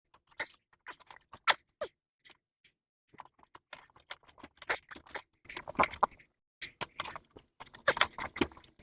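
Irregular clicks, clanks and short squeaks of metal tire tools and a rubber tire bead being forced onto a golf cart wheel rim on a manual mini tire changer.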